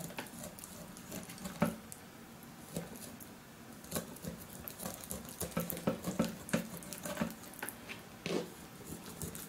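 Small sharp knife scoring a raw chicken breast on a plastic cutting board: irregular soft clicks and taps as the blade cuts into the wet meat and touches the board, with fingers handling the meat.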